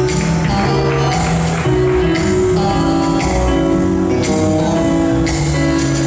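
Slow foxtrot music for ballroom dancing: held melody notes over a steady beat.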